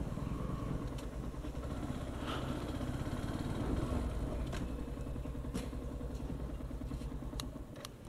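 Motorcycle engine running at low speed as the bike rolls slowly, a steady low rumble with a few faint clicks, easing off just before the end.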